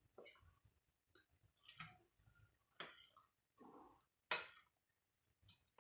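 Hand beating thick gram-flour pakora batter in a glass bowl: faint, irregular wet squelches and slaps, the loudest a little past the middle.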